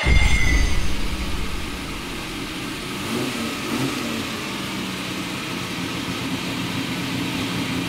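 Ferrari 250 GT SWB's V12 engine revved hard right at the start, then running steadily at a lower, even pace.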